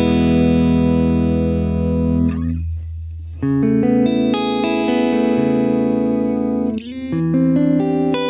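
Clean, dry electric guitar chords strummed and left to ring, with a new chord struck about three and a half seconds in and another near the end. The source is a Washburn N24 on the middle pickup setting, its DiMarzio Humbucker From Hell neck pickup switched to parallel, played through a Fractal AX8 clean preset.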